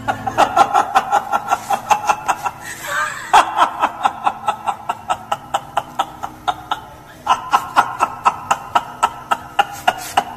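A man laughing loudly in long runs of rapid 'ha-ha-ha' bursts, about four or five a second, pausing twice briefly for breath.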